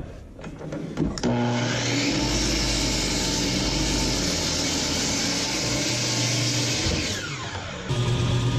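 Milwaukee miter saw's motor starts up about a second in, runs steadily for about six seconds, and winds down with a falling whine. Just before the end it gives way abruptly to a table saw already running with a steady low hum.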